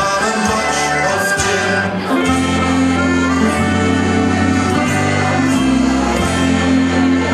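Background music: an instrumental stretch of a Dutch-language pop song played over loudspeakers, with a steady bass line and a melody between sung lines.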